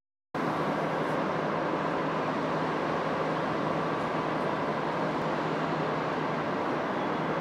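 Steady background noise of a train station concourse: an even hiss with a faint low hum, beginning abruptly a moment in.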